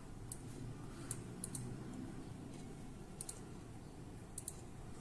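A few faint, sharp clicks, some in quick pairs, over a low steady hum.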